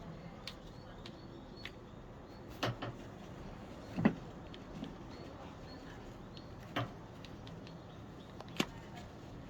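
Scattered clicks and knocks of plastic parts being handled and worked loose on a washing machine water inlet valve, four or five sharp ones among lighter ticks, the loudest about four seconds in.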